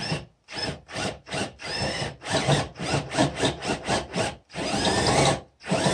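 Cordless drill run in quick stop-start bursts, a few a second with two longer runs, its motor whining as a countersink bit chatters and cuts a taper into the threaded bore of a steel spark plug shell.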